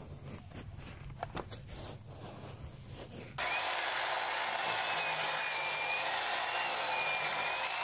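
Faint scraping and clicking of a knife working a bison hide loose. About three seconds in, an electric carcass-splitting saw starts abruptly, running loud and steady with a faint wavering whine as it cuts down the carcass.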